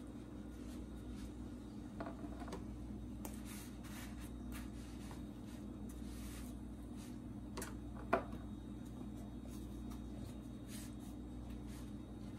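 Soft rubbing and rustling of a flour tortilla being folded and pressed in a frying pan, over a steady low hum, with one sharp tap about eight seconds in.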